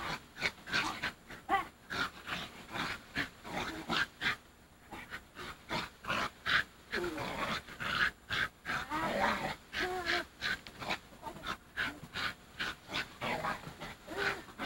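Small fluffy dog making excited play sounds: a quick string of short yips and growls.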